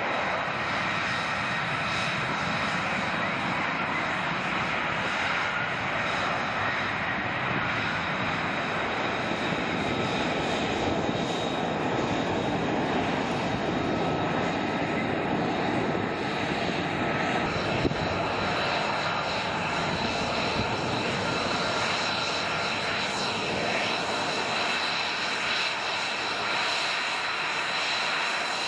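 F-35B jet in vertical take-off and landing mode, its F135 engine and lift fan running at high power: a steady roar with a thin high whine over it.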